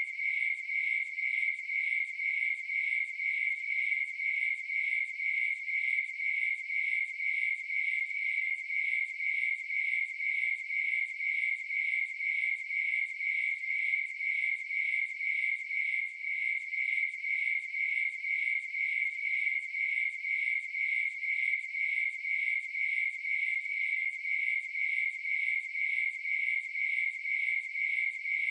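Crickets chirping in a steady, even rhythm, a few chirps a second, all on one pitch.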